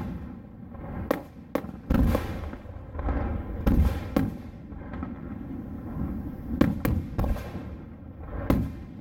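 Aerial firework shells bursting: about nine sharp bangs at uneven gaps, some in quick pairs, over a low rumble.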